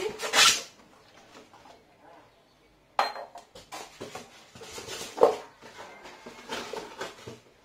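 Glass bowl and plastic parts of an electric food chopper handled on a stone countertop: a brief rustle at the start, a sharp knock about three seconds in as the glass bowl is set down, then several lighter knocks and clinks.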